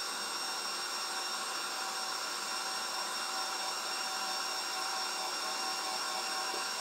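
KitchenAid Professional stand mixer running steadily on low speed while mixing bread dough, its electric motor giving an even whir with a faint steady high whine.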